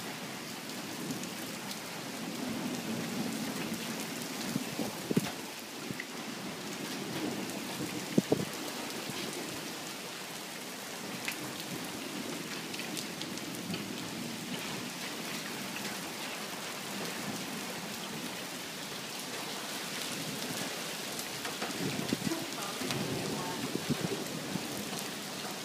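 Monsoon thunderstorm: steady rain falling, with thunder rumbling low about two seconds in and again near the end. A few sharp knocks stand out above the rain, the loudest about eight seconds in.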